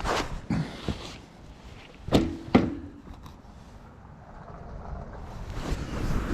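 Several knocks and thuds, the two loudest about two seconds in, one with a brief low ring, followed by scuffing and shuffling noise that grows toward the end.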